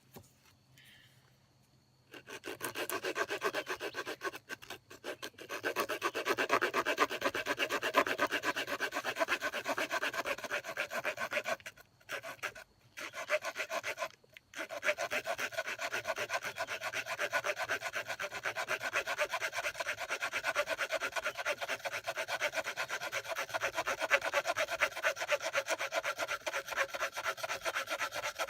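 Small wood-saw blade of a Victorinox Walker Swiss Army knife sawing through a piece of wood with rapid back-and-forth strokes. It starts about two seconds in and pauses briefly a few times.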